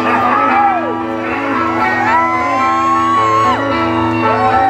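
Live rock band playing, with electric guitar chords ringing under long held, bending high notes, and shouts and whoops over the music.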